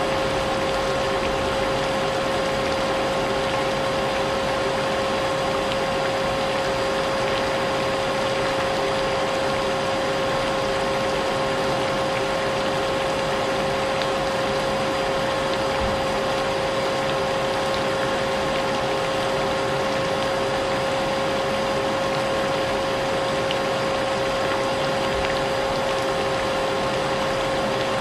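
Vacuum cleaner running steadily, its motor holding one constant whine, mixed with the even hiss of rain.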